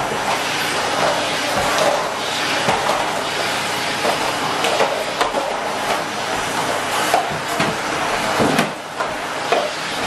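Henry tub vacuum cleaner running steadily, with plastic Play-Doh tubs knocking and clattering against the floor nozzle and each other as it pushes through them.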